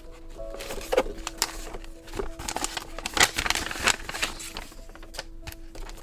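Scattered taps and clicks of paper and stationery being handled on a desk, with a denser spell of paper rustling about two and a half to four seconds in.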